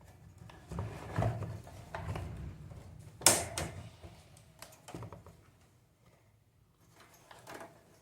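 Clicks and knocks of electric fan parts being handled and fitted together during reassembly, with one sharp click about three seconds in.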